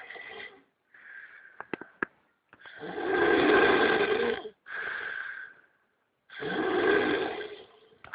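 A turtle snoring: a series of noisy snoring breaths, each one to two seconds long, with short pauses between.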